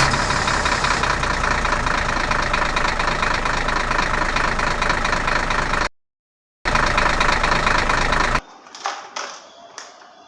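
Battery-powered toy vehicle playing an electronic engine-idling sound effect through its small speaker. The sound is steady, cuts out briefly near the middle, resumes, and stops abruptly with about two seconds to go, leaving faint handling noises.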